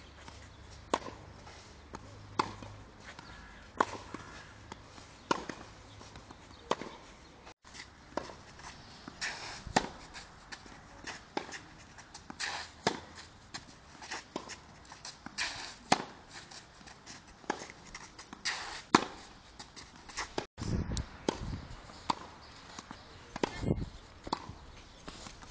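Tennis ball struck by a racket again and again in a groundstroke rally: sharp pops every second or so, with quieter ball bounces between them.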